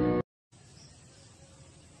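Background music cuts off abruptly just after the start, followed by a moment of dead silence and then only faint background noise.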